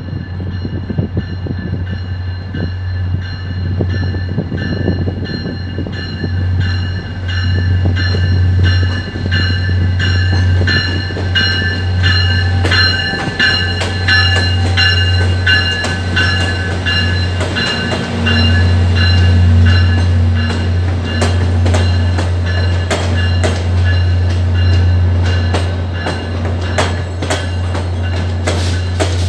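VIA Rail F40PH-3 diesel locomotive arriving slowly at a station with its bell ringing steadily over the engine's deep rumble. The bell is loudest as the locomotive draws alongside, a little past the middle, and then fades. Near the end the passenger cars' wheels click over the rail joints.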